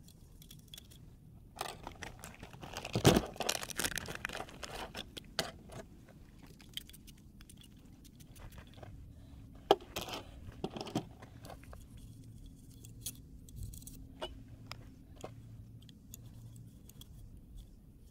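Metallic clicks and clatter from a 300 Blackout AR-style rifle being taken apart for cleaning. A burst of clicks and knocks comes about two to four seconds in, then a single sharp click near ten seconds and a few more after it. Lighter ticks and rubbing follow as a rag is worked over the parts.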